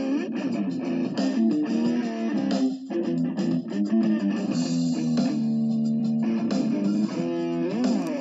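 Background music played on guitar: held notes with sliding pitch bends near the end.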